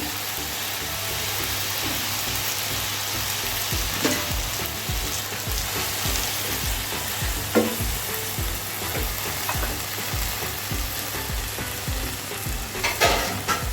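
Cauliflower stems sizzling steadily in a pan with a little water and salt, with a few sharp clicks of a spoon against the pan.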